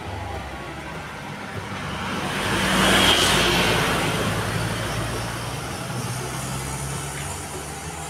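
A motor vehicle passing by, getting louder to a peak about three seconds in and then slowly fading.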